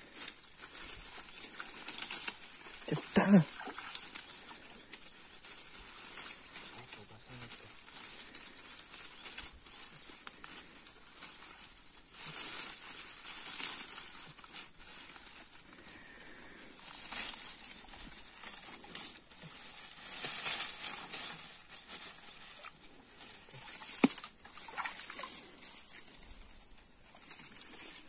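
A steady high-pitched insect drone, with scattered rustles and knocks on top, a little busier about three seconds in and again around twenty seconds in.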